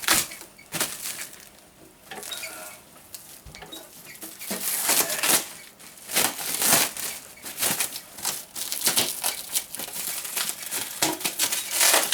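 Packing material rustling and crinkling as it is pulled off and handled, with irregular clicks and knocks.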